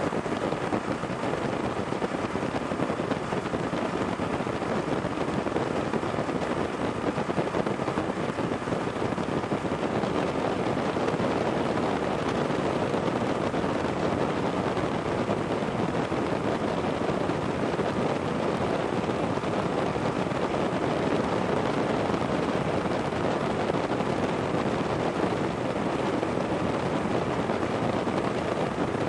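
Paramotor engine running steadily in flight, with wind rushing over the microphone.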